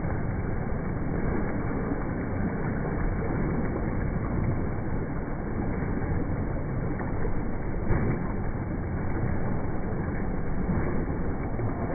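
Steady splashing of a swimmer's flutter kick at the surface of a pool, with one slightly louder splash about eight seconds in.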